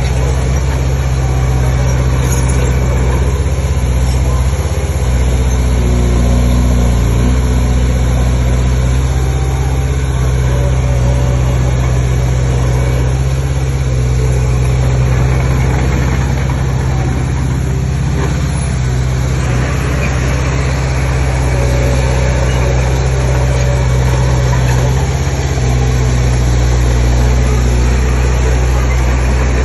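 Heavy diesel engine of earthmoving machinery running steadily, a loud low hum whose pitch shifts a little now and then as the load changes.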